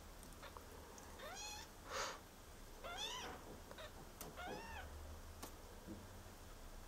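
Two-week-old kitten mewing: three short, high squeaks about a second and a half apart, each rising and then falling in pitch. A brief rustle comes about two seconds in.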